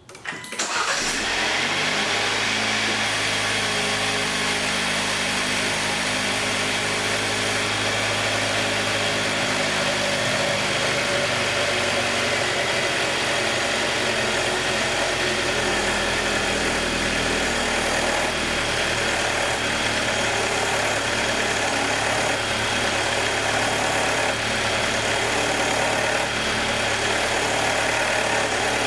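2021 Jeep Wrangler's 2.0-litre turbocharged four-cylinder engine cold-starting about half a second in, then idling steadily. It runs with a ticking that the owner finds abnormal and that comes on every cold start.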